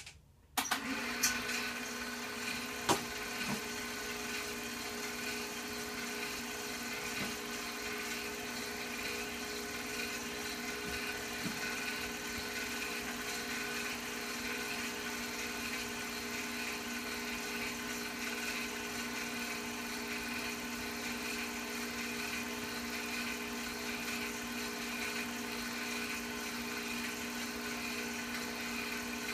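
Film projector running: a steady motor hum and whine that starts about half a second in, with a few sharp clicks in the first three seconds.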